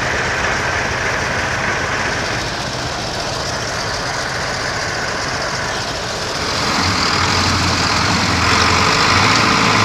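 Engine of a heavy loaded truck running steadily, pulling harder and louder with a deeper hum from about two-thirds of the way through.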